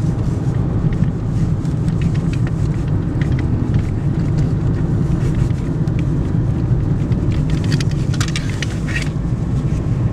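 A moving car's road and engine noise: a steady low rumble, with a few faint rattles.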